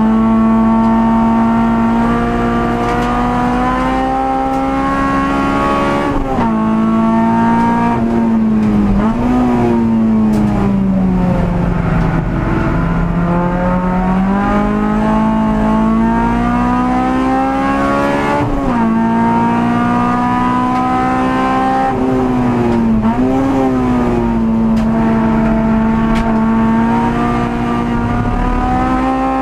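Honda Civic EG6 race car's four-cylinder VTEC engine heard inside the cabin at racing speed. Its note climbs under full throttle and drops suddenly at gear changes, about three times. A longer fall in pitch, with short blips, comes about a third of the way in, before the note climbs again.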